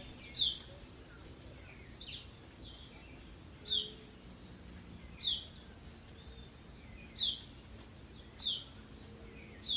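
Steady, high-pitched drone of tropical insects, with a short falling call note repeated about every second and a half.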